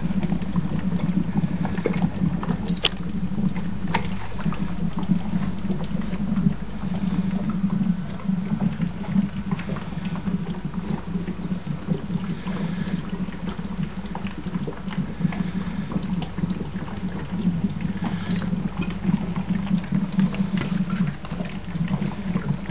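Gas from an HHO electrolysis cell bubbling and gurgling steadily through water as it fills an inverted collection bottle, with the cell running hard at about 130 volts and 4 amps. Two short high beeps, about 3 seconds in and 18 seconds in, from a digital timer.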